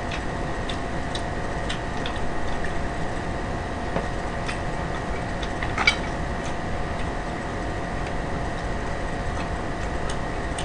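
Electric fan running with a steady whir and a faint hum, under scattered light clicks and taps from food being handled and eaten.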